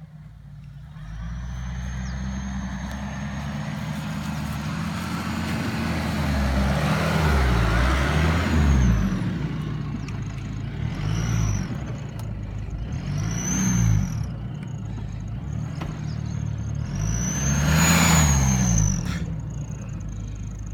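Dodge Nitro SUV's engine pulling through soft sand, revving up and down in several surges, the loudest near the end, with a rush of tyre and engine noise at each surge.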